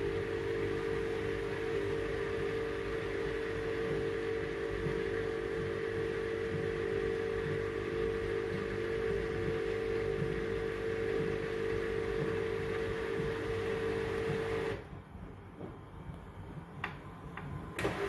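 Brandt front-loading washing machine's drum motor running with a steady hum as the drum turns the wet towels. About 15 seconds in the motor cuts off suddenly; after a short pause with a couple of faint clicks it starts again near the end.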